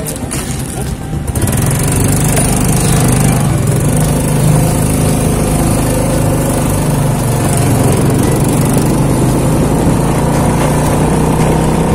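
Small motorbike engine running under way, rising in level about a second in as the bike pulls off, then holding a steady hum.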